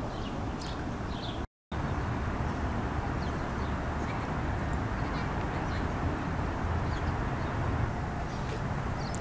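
Outdoor park ambience: small birds chirp now and then over a steady rush of background noise, with a low rumble of wind on the microphone. The sound cuts out completely for a moment about a second and a half in.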